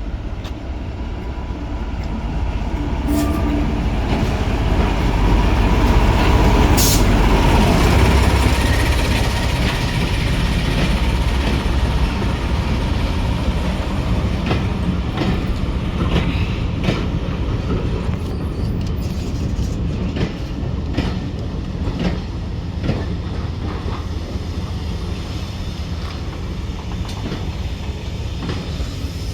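Train running along the line: a steady low rumble that grows loudest a few seconds in and then eases, with the wheels clicking over the rail joints.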